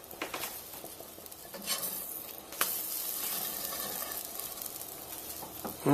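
Pancake batter sizzling as it cooks in a non-stick frying pan, with a single sharp knock about two and a half seconds in.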